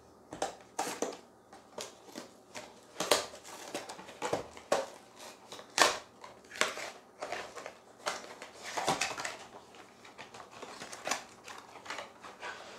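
A cardboard product box being opened by hand: tape ripped off, flaps pried open and the paperboard packaging crackling and crumpling, in irregular sharp rips and crackles.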